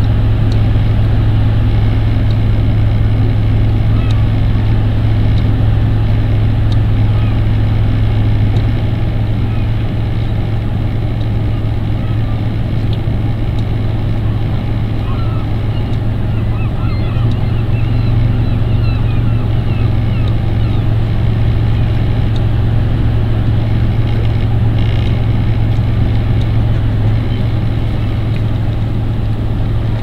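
A loud, steady low engine drone. Faint bird calls come through about halfway.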